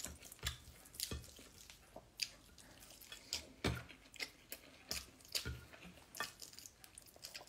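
Close-up mouth sounds of eating chicken and rice by hand: wet chewing and lip smacks in an irregular run of short clicks, with soft squelches of fingers in the rice.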